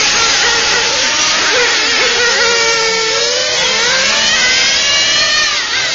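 Small two-stroke engine of a radio-controlled racing car running at high revs, its high-pitched whine dipping and then climbing again as it slows for and accelerates out of corners.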